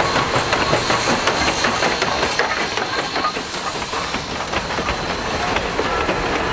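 Steam locomotive New Haven 3025 passing close by with a steady hiss of steam, its wheels and then its passenger coaches clattering over the rail joints.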